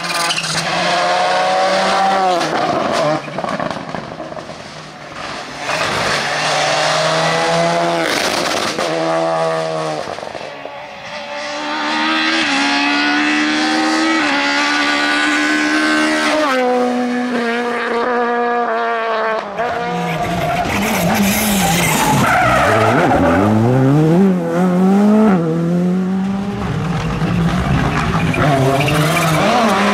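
Rally cars driven hard on a tarmac stage, one after another, among them a Volkswagen Polo GTI R5 and a Peugeot 206. The engines rev high, the pitch climbing through each gear and dropping at every shift and lift. Near the end there is a quick run of rising and falling revs.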